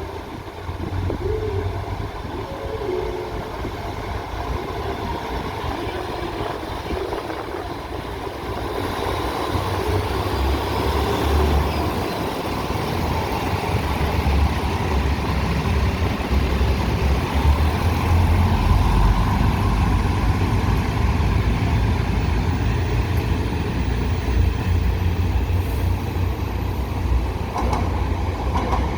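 Train running with a steady low rumble that grows louder about a third of the way through and stays loud.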